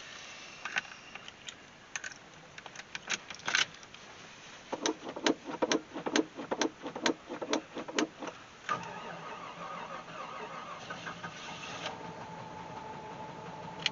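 Cold start of a Jeep Grand Wagoneer's AMC 360 V8: after a few clicks and a key jingle, the gas pedal is pumped about eight times in quick, even strokes to prime the carburetor. Then, about two-thirds of the way in, the engine catches almost at once and settles into a steady cold idle.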